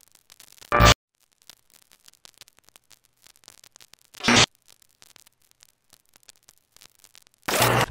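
Faint static crackle broken by three short, loud bursts of noise: about a second in, about four seconds in, and near the end. The last burst runs into music.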